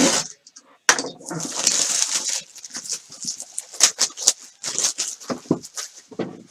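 A trading-card box being unwrapped and opened by hand: irregular crinkling of plastic wrap and rustling, scraping packaging, with many sharp crackles.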